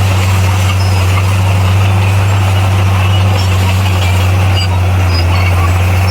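Diesel engine of heavy earthmoving machinery running steadily under power, a loud even low drone that does not change pitch.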